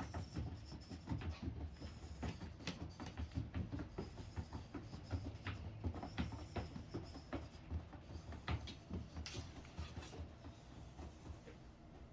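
Cat exercise wheel spinning with a cat running in it: a low rumble with rapid, irregular clicking and knocking, an odd noise the wheel does not usually make. It dies down near the end as the cat brakes the wheel.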